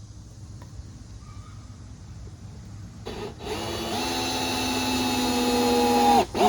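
Cordless drill driving a screw into 2x4 lumber. The motor starts about halfway through with a brief stop-start, then runs at one steady pitch, growing louder as the screw bites. It cuts off near the end and is followed by two short bursts to seat the screw.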